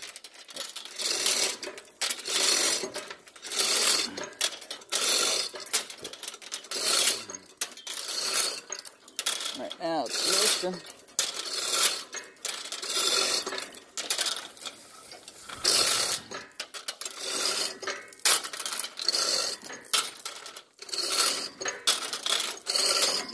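Hand-operated 3-ton chain block being hauled, its steel chain rattling and clinking through the hoist in repeated pulls about once a second as it lifts a heavy corrugated metal pipe.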